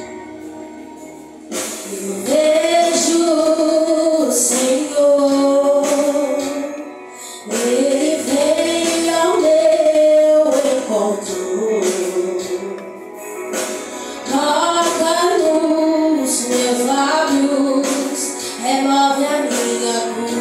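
Worship song with women's voices singing the melody over instrumental accompaniment. The singing comes in about a second and a half in and goes on in long phrases with brief breaks between them.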